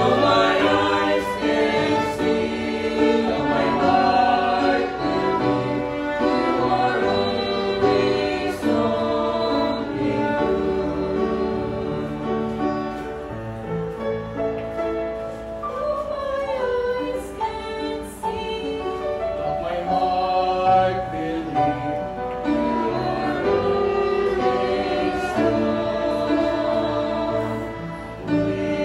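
Vocal quartet of two men and two women singing a slow gospel song in harmony through handheld microphones and a PA, with piano accompaniment.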